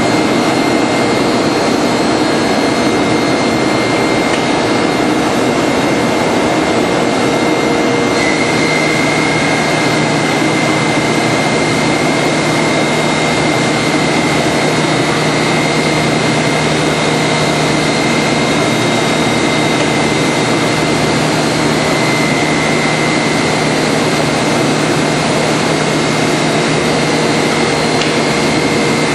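Combination jointer-thicknesser (planer) running, a loud steady machine noise with a high whine; a lower hum joins about eight seconds in.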